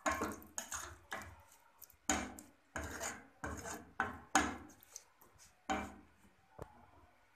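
A ladle stirring a watery, chunky curry in a stainless steel pot, scraping against the pot in about ten quick, uneven strokes that stop near the end.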